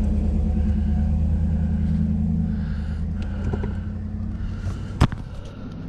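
Vehicle engine running steadily, fading away after about three seconds, then a single sharp knock about five seconds in.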